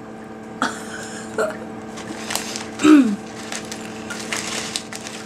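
A woman drinking to wash a taste out of her mouth: small mouth and swallowing noises, with a click about two and a half seconds in. About three seconds in comes a short falling vocal sound, the loudest thing here.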